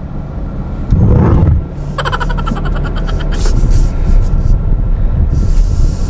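Low rumble inside a car's cabin with the car running, with a loud knock about a second in and a short rattling buzz around two seconds in.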